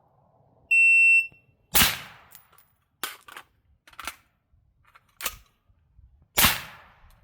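A shot timer gives one short, high start beep, then a rifle fires a single loud shot. Several sharp metallic clicks follow as the magazine is swapped in a speed reload, and a second loud shot comes near the end.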